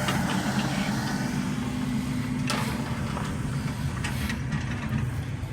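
A motor vehicle's engine running steadily with a low hum, with two short clatters about two and a half and four seconds in.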